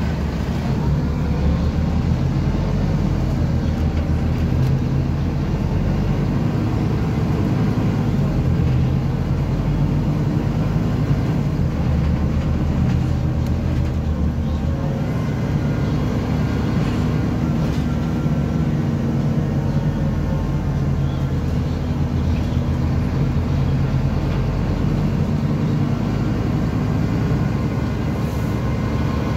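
Passenger-cabin sound of a Scania CN270UB city bus under way: its Scania DC9 five-cylinder diesel engine drones steadily at the back, mixed with tyre and road noise.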